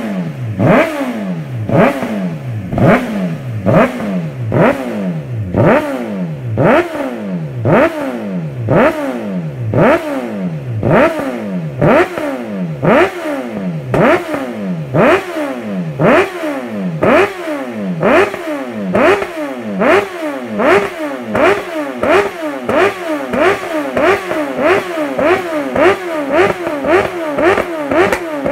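Sport motorcycle with an aftermarket can-style exhaust being revved over and over, about one throttle blip a second and slightly quicker towards the end. Each rev climbs sharply and then falls back towards idle.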